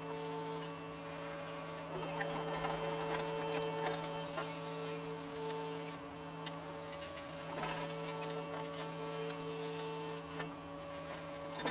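John Deere 75 excavator's engine and hydraulics running steadily while digging, a buzzing hum held on a few steady tones.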